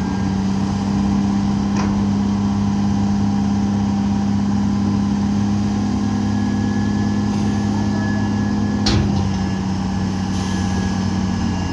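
Heavy diesel engine of construction machinery running steadily at a constant speed, with two sharp metallic clacks, one about two seconds in and a louder one near the end.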